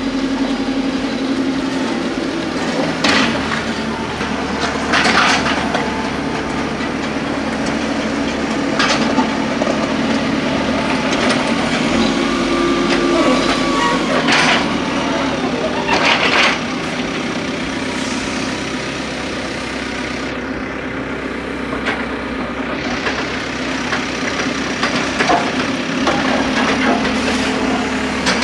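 A heavy vehicle's engine running steadily at a work site, with short scraping and clattering sounds every few seconds as silt and mud are cleared from the road.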